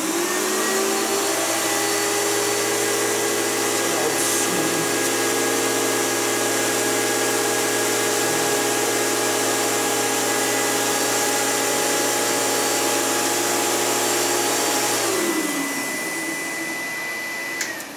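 Filter Queen vacuum cleaner switched on and running with a steady whine of several tones. About fifteen seconds in it is switched off and winds down, its pitch falling as it fades: the Filter Queen's signature sound.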